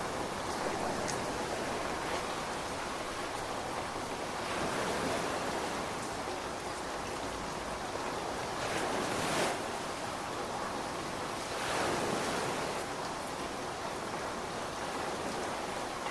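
Ocean waves washing in and breaking over a steady rain hiss, the surf swelling louder a few times. No thunder is heard.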